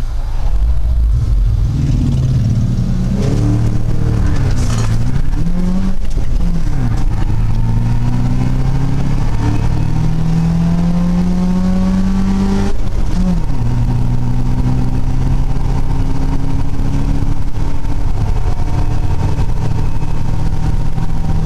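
Subaru 2.5-litre SOHC flat-four in a VW Vanagon accelerating hard from a standstill, heard from inside the cab. Its pitch climbs through each gear and drops at each upshift, with a long pull through the middle and a steadier note in a higher gear near the end.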